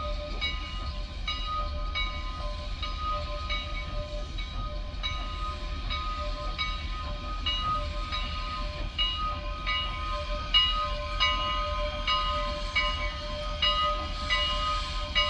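Locomotive bell ringing steadily, about three strikes every two seconds, over a low rumble from the slowly moving train.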